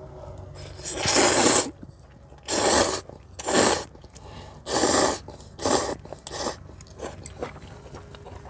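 A person slurping ramen noodles in six loud, short noisy pulls, then a few faint clicks near the end.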